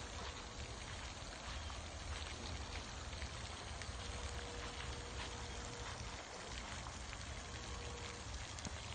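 Steady outdoor background noise: an even hiss with a low rumble and scattered faint clicks.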